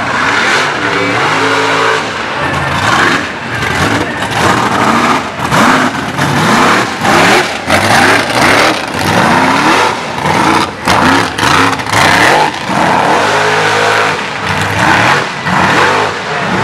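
Mud-racing buggy's engine revving hard again and again, its pitch sweeping up and dropping back as the throttle is worked. It holds a steady pitch briefly about a second in and again near the end.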